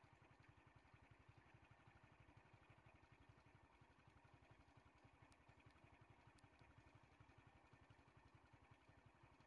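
Faint engine idling steadily, with a quick, even low throb. Two faint, short high ticks sound about midway.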